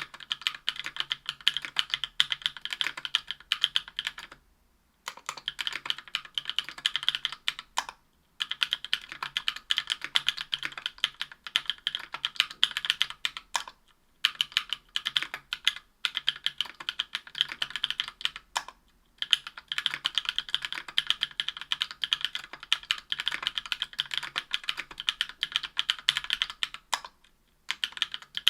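Typing on a Tofu 60% aluminium keyboard with Durock Cherry Blossom 65 g linear switches lubed with Krytox 205g0, on an aluminium plate with GMK keycaps. Runs of keystrokes are broken by five brief pauses.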